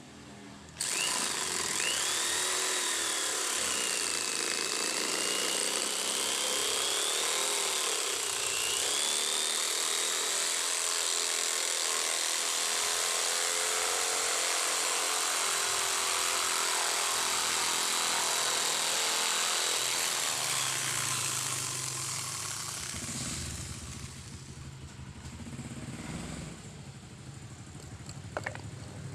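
Power tool driving a jigsaw adaptor, running at speed and cutting. It starts abruptly about a second in, and its motor whine wavers up and down in pitch. About 21 seconds in it winds down to a low hum, and there is a single click near the end.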